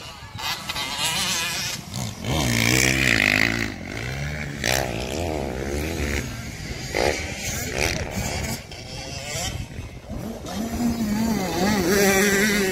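Dirt bike engines revving, their pitch rising and falling as the riders ride the motocross track. In the last couple of seconds one bike holds a steadier note.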